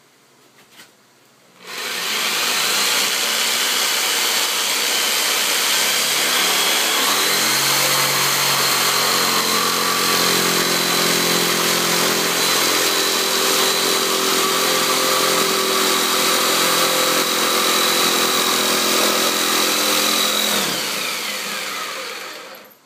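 Electric power tool motor starting up and running steadily under load for about twenty seconds, then released so that its whine falls as it spins down near the end.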